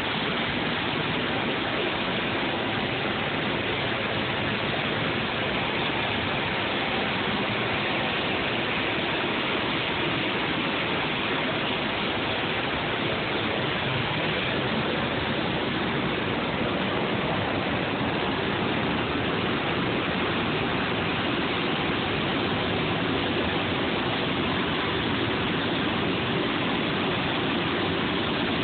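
Waterfall rushing as it pours into a pool, a steady, even roar of falling water.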